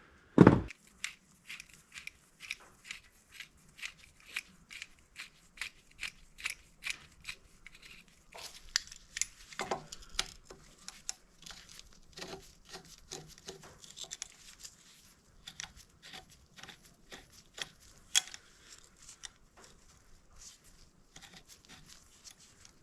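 Hand tools working a corroded bolt out of a small dirt-bike engine's timing cover: a run of sharp metal clicks and scrapes, about two a second at first, then irregular, with a heavier knock just after the start.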